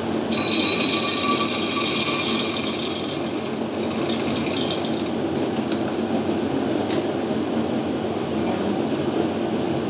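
Dried popcorn kernels poured from a plastic bag into a stainless steel pot, rattling in a stream for about three seconds, then a second shorter pour.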